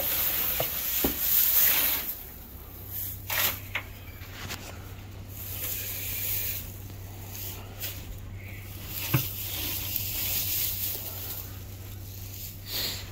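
Dry hay rustling and crackling as it is handled and dropped into a feed tub for sheep, in bursts with a few sharp clicks, loudest in the first couple of seconds.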